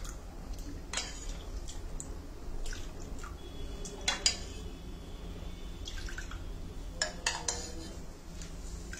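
Warm milk being ladled and poured into clay bowls: drips and splashes of milk, with light clinks of a metal ladle against a glass bowl, a few louder ones about four seconds in and again near seven seconds.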